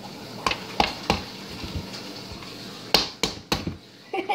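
Hands patting and slapping a raw ground-meat mixture in a bowl to shape a meatloaf, giving short sharp knocks: three quick ones in the first second or so, then three louder ones close together about three seconds in.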